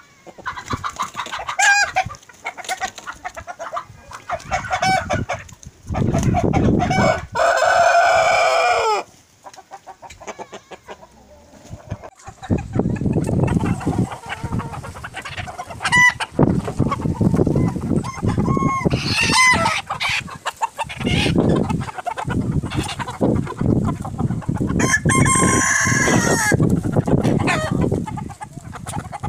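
A flock of chickens clucking, with roosters crowing several times; one long crow about seven seconds in ends on a falling note. A low rumbling noise runs under much of the second half.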